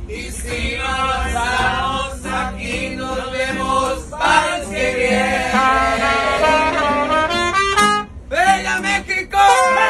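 A group of men singing a football fan song together to a strummed acoustic guitar. About eight seconds in the song breaks off, and near the end it turns into loud shouting and cheering.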